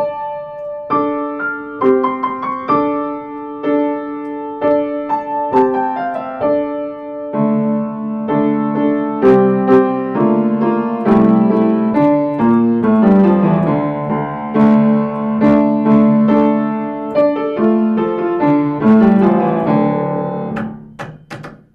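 Solo piano playing an intermediate teaching piece, with a melody of single notes and chords over a low bass. It closes on a held chord that dies away near the end.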